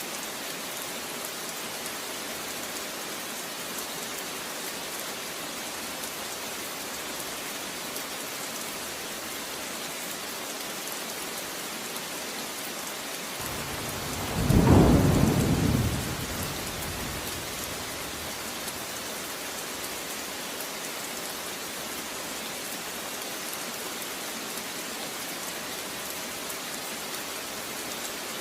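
Steady rain, with one roll of thunder about halfway through that rumbles for two or three seconds and fades; the thunder is the loudest sound.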